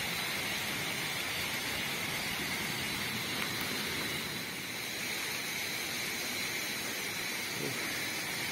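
Steady rushing of a flooded river: an even hiss with a faint, steady high tone running over it.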